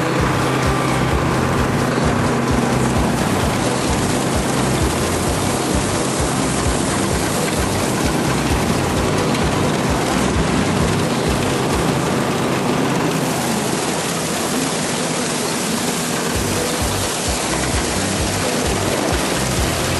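Combine harvester running steadily while its pickup header takes in swathed canola: a dense, even machinery noise.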